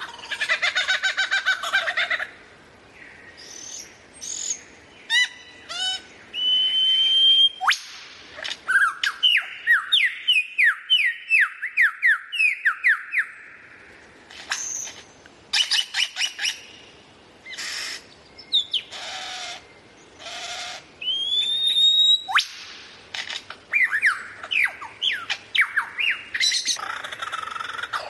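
A songbird singing a varied song of clear whistles, runs of quick downward-sweeping notes and short harsh notes, in phrases broken by brief pauses.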